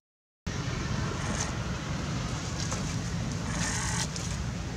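Steady outdoor background noise with a low rumble, starting after a brief dead-silent dropout; a few short, faint higher-pitched noises rise above it.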